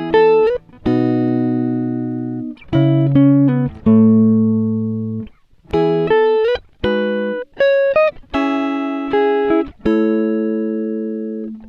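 Background music: solo guitar playing a slow run of plucked notes and chords, each left to ring and fade, with a few notes sliding up into pitch.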